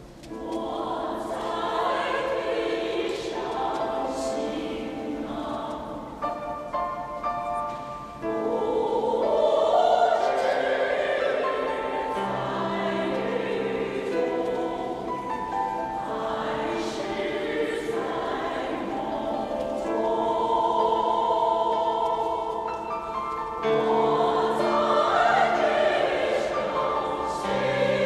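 Choir singing a Chinese song in a large church, growing louder about eight seconds in.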